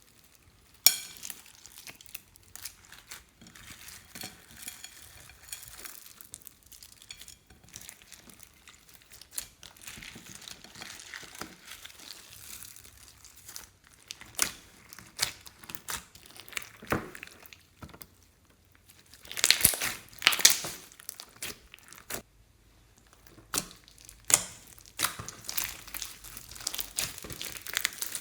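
Slime being squished, stretched and pressed by hand, giving irregular crackles and pops from trapped air, with a dense run of crackling about twenty seconds in.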